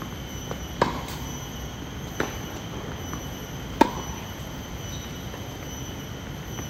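Tennis rally on a hard court: sharp pops of racket strikes and ball bounces, three clear ones at about one, two and four seconds in, the one near four seconds the loudest, with a few fainter taps between.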